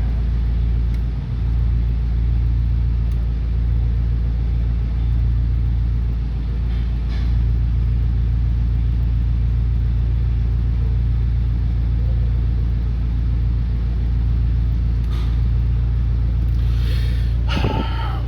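A steady, loud low-pitched hum, with a few faint clicks along the way and a brief busier sound near the end.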